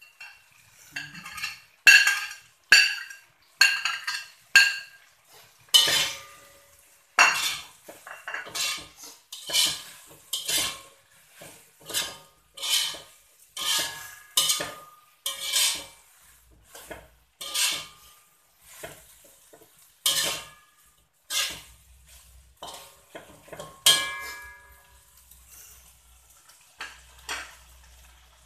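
A slotted metal spatula scraping and clanking against a metal wok while stir-frying, in a steady run of strokes about one a second. Some strikes leave the wok ringing briefly.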